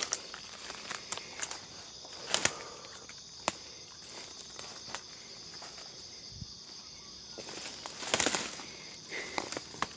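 Footsteps and rustling through forest undergrowth, with louder brushing bursts about two and a half seconds in and again around eight seconds, over a steady high-pitched insect drone.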